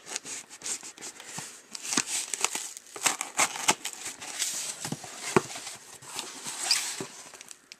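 Packing tape being cut with a pocket knife and peeled off a cardboard box: irregular crackling, ripping and scraping, with many sharp clicks.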